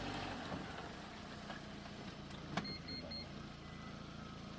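Car engine running at low revs while the car is moved slowly, with a sharp click a little past halfway and a few faint short high beeps just after it.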